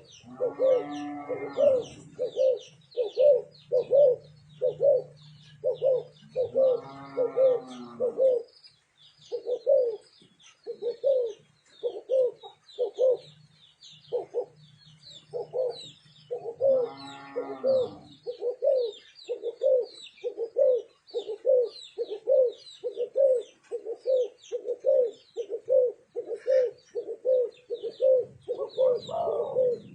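Spotted doves cooing: short low coos repeated a little faster than once a second, with three longer, fuller coos over them from a second bird, and thin high chirping of small birds throughout.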